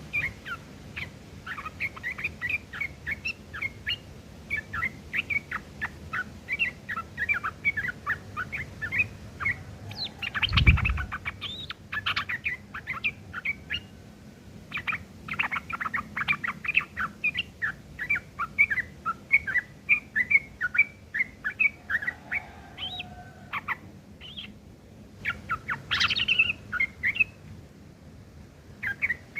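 Yellow-vented bulbul singing in rapid runs of short, rough chattering notes, a song filled with long-tailed shrike phrases, with a couple of short pauses. A single low thump sounds about eleven seconds in.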